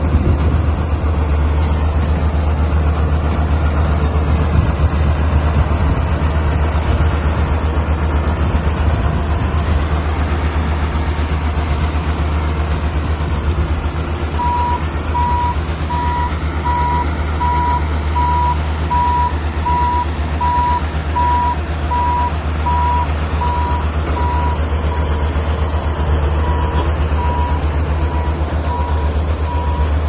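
Ingersoll Rand SD-110D road roller's diesel engine running steadily as the machine drives. About halfway through its reverse alarm starts beeping, about one beep a second.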